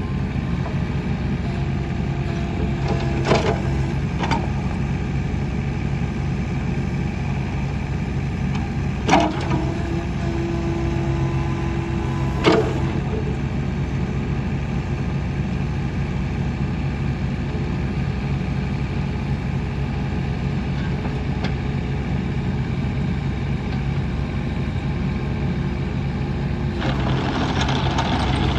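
Kubota KX61-3 mini excavator's diesel engine running steadily as the boom and bucket are worked, with a few sharp metallic clanks from the arm and bucket. Near the end the noise gets louder and rougher as the machine starts tracking.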